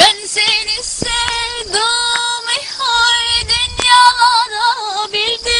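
A woman singing a melody, her voice wavering and gliding in pitch, over a steady held tone.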